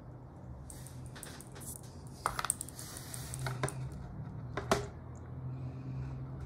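Suunto Ocean dive watch being handled and lifted out of its box: soft rustling of the packaging with a few sharp clicks and light taps, a quick cluster of clicks halfway through and the loudest single click a little later, over a steady low hum.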